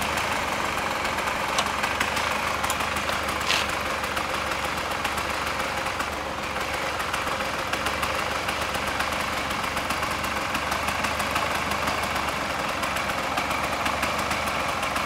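Honda CRM250R's single-cylinder two-stroke engine idling steadily, which the seller describes as starting easily and running well. A few short clicks come in the first few seconds.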